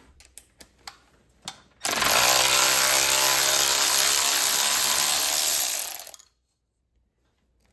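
Small electric ratchet running for about four seconds as it spins a 10mm rocker-arm jam nut off a Predator 212 engine, after a few light clicks of the tool being fitted onto the nut. The motor runs at a steady pitch and stops abruptly.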